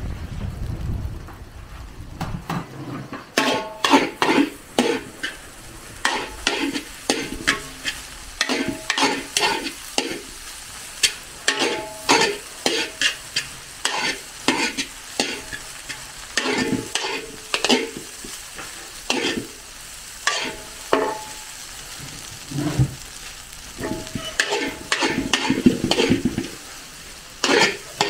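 A long-handled metal ladle scraping and knocking against a large metal wok as fried rice is stir-fried, over a steady sizzle. The strokes come in quick runs from about three seconds in, and some leave the pan ringing briefly.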